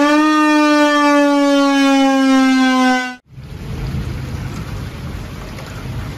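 Federal Thunderbolt outdoor warning siren sounding one loud tone that slowly sinks in pitch, cut off abruptly about three seconds in. Heavy rain and low rumbling thunder follow.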